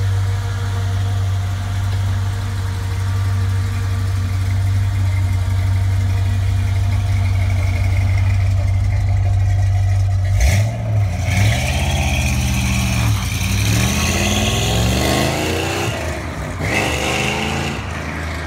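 1965 Chevrolet Corvette's V8 idling steadily for about ten seconds, with a short knock near the middle. Then it pulls away, its pitch rising as it accelerates, dropping once and rising again, and the sound fades as it goes.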